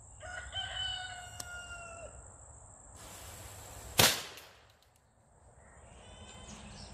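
A homemade blackpowder pistol fires a single loud shot about four seconds in, after about a second of hissing.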